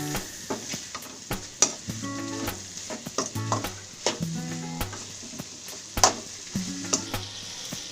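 Stir-fry of vegetables, egg and fried chicken pieces sizzling in hot oil in a pan, with a spatula scraping and knocking against the pan many times.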